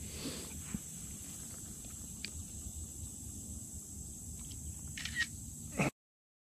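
Low steady rumble and hiss with a few light clicks and taps as a phone is handled in the kayak, then the sound cuts off suddenly to dead silence near the end.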